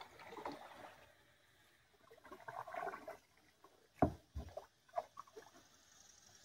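Kayak paddle strokes splashing in the river water, twice, then two sharp knocks about four seconds in and a few lighter taps.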